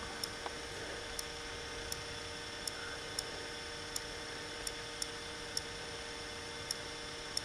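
Steady electrical mains-type hum, with faint short high ticks coming unevenly, about one or two a second.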